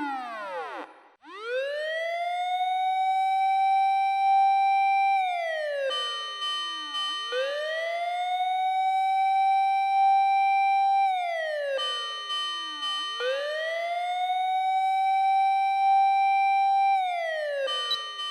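Fire engine siren wailing on a fire call. Each cycle rises over about a second, holds steady for around four seconds, then slides down, three times in a row about six seconds apart. A steady higher tone sounds briefly at each fall.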